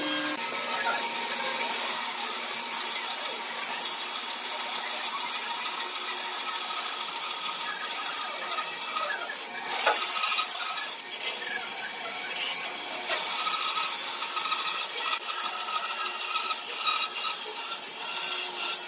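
Band saw cutting a curved line through a thick pine block, a steady hiss of the blade in the wood. Just at the start, the hum of a mortising machine stops.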